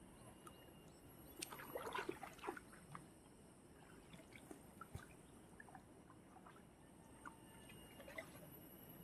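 Faint splashing of a hooked fish thrashing at the water's surface near the bank, loudest in a short flurry about two seconds in, with a few small splashes and clicks after.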